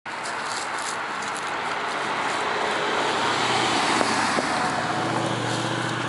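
A car driving past, its tyre and engine noise building gradually to a peak about four seconds in and then easing off.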